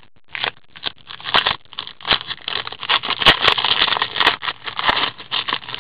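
Foil trading-card pack wrapper being torn open and crinkled by hand: a dense run of crackling rustles and sharp crinkles, starting about a quarter second in.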